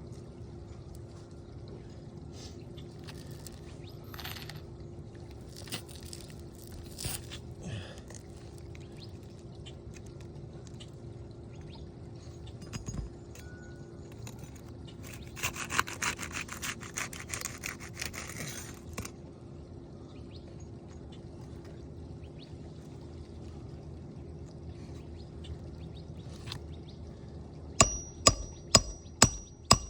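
Scattered handling clicks and a few seconds of scraping over a steady low hum, then near the end a quick run of hammer blows on a roof snake driving a roofing nail under a shingle, about two a second, each strike ringing metallically. The roofer says each blow is passed through the shingle before it reaches the nail, damaging the shingle.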